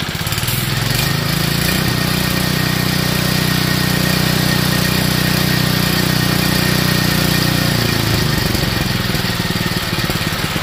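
DuroMax 212cc single-cylinder engine on a lawn-tractor go-kart build running, throttled up from idle about half a second in, held at a steady higher speed, then let back down to idle near the end.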